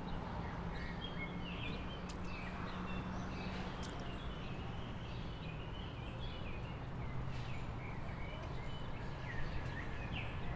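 Outdoor ambience: a steady background hiss with scattered short bird chirps and a few faint clicks.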